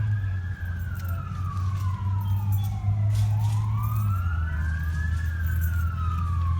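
Emergency vehicle siren wailing, its pitch slowly rising and falling about every three seconds, with a second siren sounding slightly out of step. A steady low rumble runs underneath.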